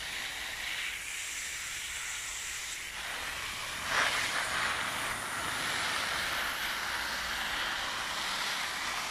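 Water spraying in a fine shower onto potted monstera plants, a steady hiss of spray on leaves and soil, briefly louder about four seconds in.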